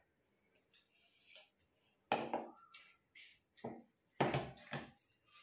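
Plastic mixing bowls and a spatula being handled: light scraping of the spatula against a bowl, then knocks as a bowl and a small container are set down on a wooden table, the loudest a short cluster of knocks about four seconds in.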